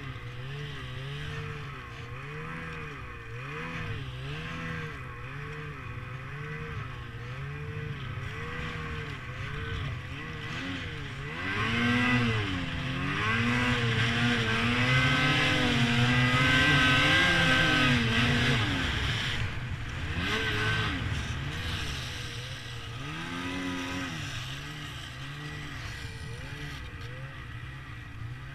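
Snowmobile engine running, its pitch rising and falling over and over with the throttle. About halfway through it revs harder and louder for several seconds, then eases back.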